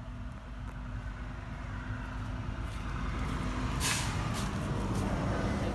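A low mechanical rumble that grows steadily louder, with a short hiss about four seconds in.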